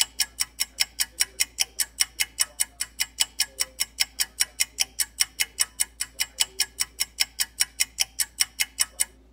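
Rapid, very even ticking like a clock or timer, about five ticks a second, which starts and stops abruptly.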